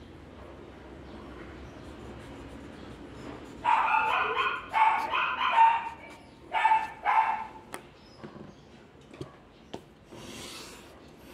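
A dog barking: a run of loud barks from about four to seven seconds in, over faint scratching of a blending stump on drawing paper.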